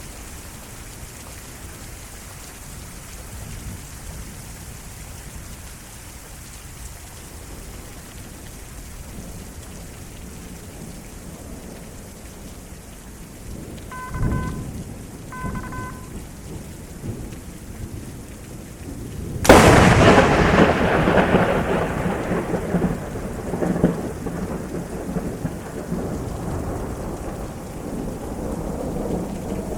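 Steady heavy rain, then about two-thirds of the way in an extremely close lightning strike: a sudden sharp crack followed by thunder rumbling and slowly fading under the rain. Around halfway there is a lower thump of thunder and two short electronic beeps.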